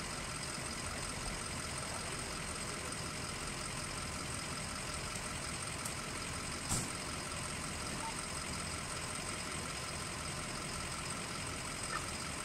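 Fire apparatus engines idling steadily, with a few faint steady high tones over them and a single brief knock a little under seven seconds in.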